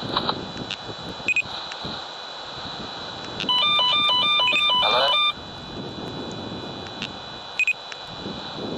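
Valentine One radar detector sounding its laser alert: a loud, rapid alternating beeping in two pitches lasting about two seconds, midway through, meaning it has detected the laser gun's shots. Two short high beeps sound about a second in and near the end.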